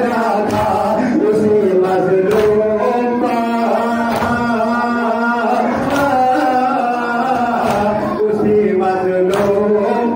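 Men's voices chanting a nouha, a Shia mourning lament, with sharp matam strokes, hands striking chests, landing in time about once a second.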